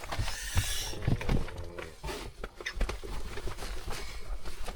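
Dogs shifting about inside a small camper van: scattered knocks, thumps and rustling, with a brief vocal sound in the first second.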